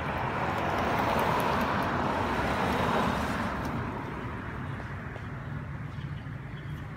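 A vehicle passing on the road, a rush of noise that swells over the first three seconds and then fades away, over a steady low traffic rumble.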